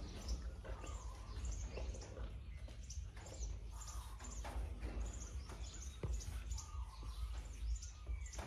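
Small birds chirping over and over in short, high calls, over a steady low rumble.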